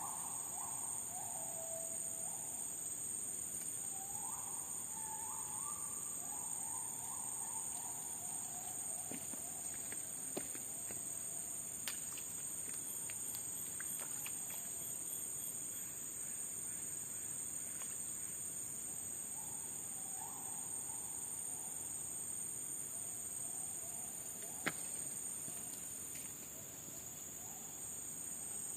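Forest ambience with a steady high-pitched drone of insects and a bird giving short, repeated falling calls in groups. A few sharp clicks sound, one of them about three-quarters of the way through.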